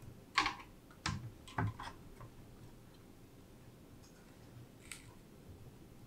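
Leadtek RTX 3090 graphics card being pushed down into a PCIe slot in a metal GPU drawer: a handful of sharp clicks and knocks in the first two seconds, then one faint click about five seconds in.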